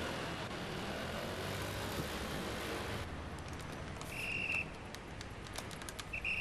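Motor scooter riding through traffic: steady engine and road noise. About three seconds in it drops to quieter street sound with scattered ticks and two short high beeps.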